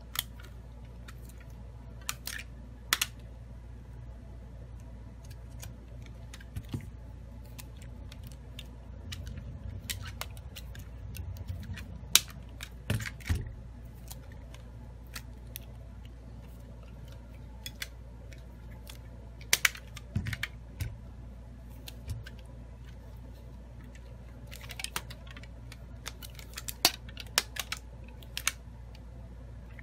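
Rubber bands being stretched and snapped around a smartphone, clamping a freshly fitted replacement LCD screen while its adhesive sets. Irregular sharp snaps and taps against the glass come over a steady low hum.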